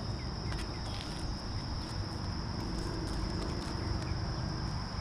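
A steady, high-pitched drone of insects, one unbroken tone, over a low rumbling noise, with a few faint ticks.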